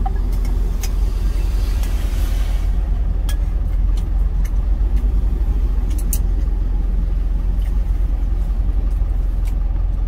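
Steady low rumble of a truck engine idling, heard from inside the cab, with a few light clicks of wooden chopsticks against a stainless steel bowl and a brief rush of noise between about one and three seconds.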